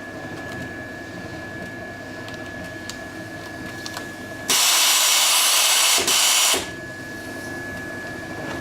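Continuous band sealer running with a steady motor whine, and about halfway a loud hiss of gas blowing from its filling nozzle into the bag for about two seconds, with a short break in the middle.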